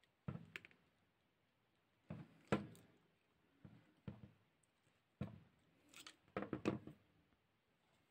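Faint clicks and scrapes of steel pliers gripping and bending square brass wire, in several short clusters with pauses between.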